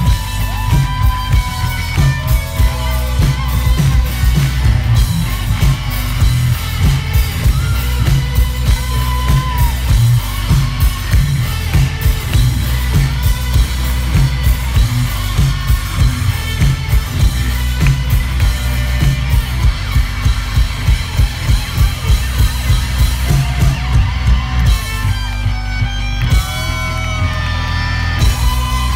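Live rock music played loud through a stage PA: electric guitar over a drum kit keeping a steady beat of about two hits a second.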